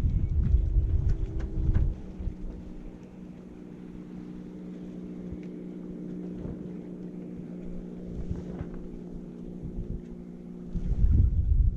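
Wind buffeting the microphone in heavy gusts for the first two seconds and again near the end, over a steady low hum made of several even tones.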